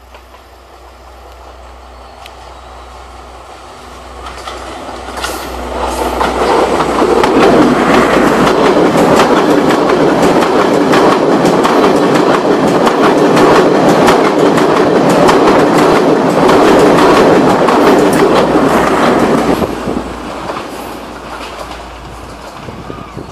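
Class S14 diesel multiple unit approaching and passing close at speed. A low engine hum builds over the first few seconds into a loud, rapid clatter of wheels over the rail joints that lasts about fourteen seconds, then fades near the end as the train goes by.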